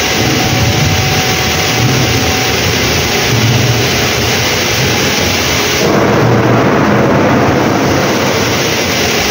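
Wind buffeting the microphone on an open ship's deck: a loud, steady rushing with uneven low rumbles. It turns duller and deeper about six seconds in.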